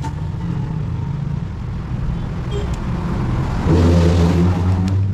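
Engine running with a steady low hum, then a louder, deeper drone for about a second and a half near the end that cuts off.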